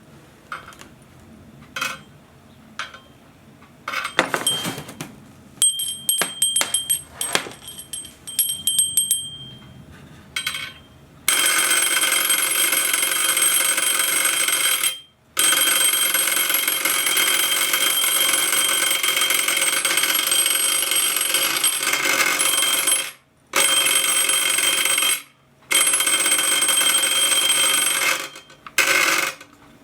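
Homemade electromagnetic doorbell: first a few clicks and short rings of a small bell, then from about 11 seconds in the coil drives its spring-metal clapper rapidly against the bell in a continuous ringing rattle like an electric alarm bell. It cuts out briefly a few times.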